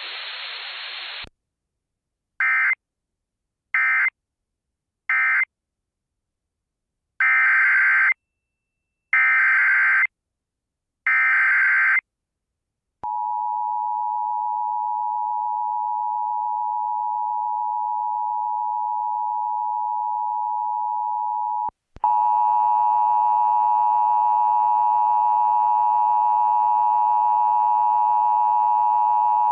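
Emergency Alert System tones from a Sage EAS ENDEC: three short screeching data bursts, the end-of-message code closing the previous alert, then three longer data bursts, the header of the next alert. About a second later the steady two-tone attention signal sounds for about nine seconds, and a harsher steady tone follows for the last seven seconds.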